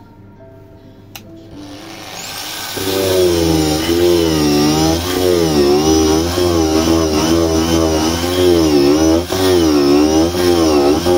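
Handheld electric rotary tool with a ball-shaped burr, grinding out the hollow of a cherry-wood dish. After a quiet start it comes up about two seconds in, then runs loud, its whine dipping and rising over and over as the burr is pressed into the wood and eased off.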